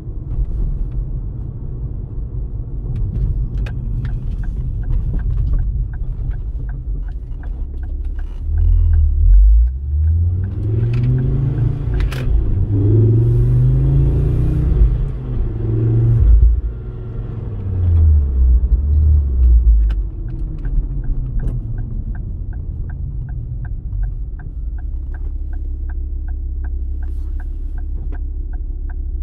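Ford Focus ST Mk2's turbocharged 2.5-litre five-cylinder engine with a turn-signal indicator ticking about twice a second. The engine note rises and falls several times as the car pulls away through the gears about a third of the way in, then drops back to a steady low rumble, with the indicator ticking again in the second half.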